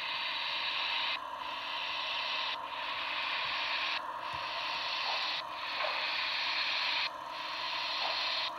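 Steam-locomotive hiss played through the small speaker of a Broadway Limited Santa Fe Blue Goose 4-6-4 model's sound decoder, a steady rush that dips and swells again about every second and a half.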